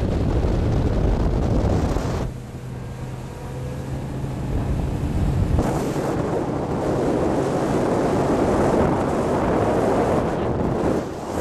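Wind buffeting the microphone over a Four Winns motorboat's steady engine hum and rushing water. The rush drops away suddenly about two seconds in and comes back loud about six seconds in.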